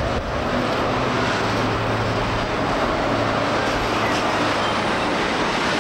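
Train standing at a station platform, its engine running with a steady low hum under a broad rumbling noise.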